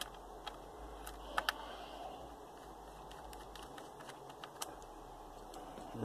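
Scattered light clicks and taps from handling the underside of a laptop's plastic and metal case, with a sharp double click about a second and a half in.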